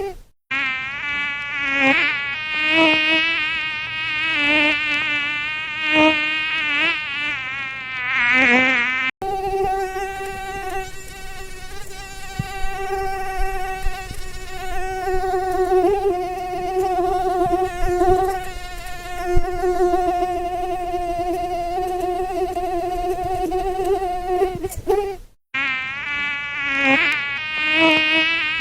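Mosquito whining in flight, a high buzzing tone with many overtones. Its pitch wavers up and down for the first nine seconds and again near the end, and holds steadier in between, with brief drop-outs where the track is spliced.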